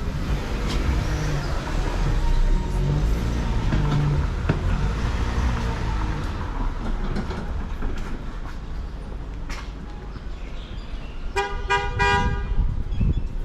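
Vehicle horn sounding about three short toots in quick succession near the end, over a low steady rumble of street noise.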